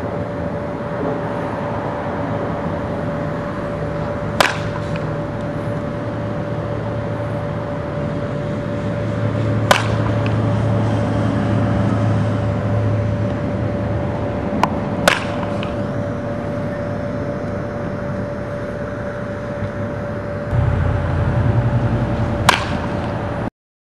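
Baseball bat hitting pitched balls in batting practice: four sharp cracks roughly five to seven seconds apart, over a steady hum and outdoor background rumble. The sound cuts off suddenly near the end.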